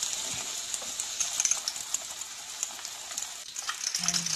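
Hot oil sizzling and crackling in a wok as battered pieces deep-fry. It dips briefly about three and a half seconds in, then crackles louder as an egg fries.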